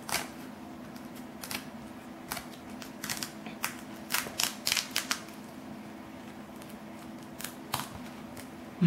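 Scattered small clicks and scratches as a toddler's hands pull and handle the attached pieces of a felt activity book, clustered between about three and five seconds in, over a faint steady low hum.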